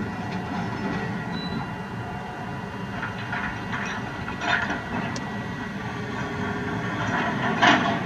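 Komatsu PC350 hydraulic excavator's diesel engine running steadily as its bucket handles large boulders, with rocks knocking against each other several times in the second half, the loudest knock near the end.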